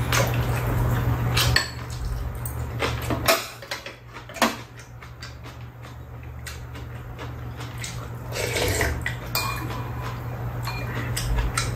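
Metal chopsticks and spoons clinking and tapping against ceramic bowls during a meal, in scattered single taps. A low steady hum sits underneath, stronger in the first few seconds.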